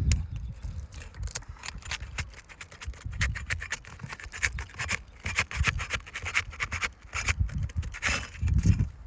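A tool scraping and clicking against 3-tab asphalt shingles as they are worked loose to break the seal, with dull low thumps from handling underneath.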